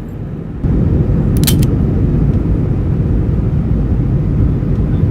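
Steady low vehicle rumble that gets louder under a second in, with a brief high rattle about a second and a half in.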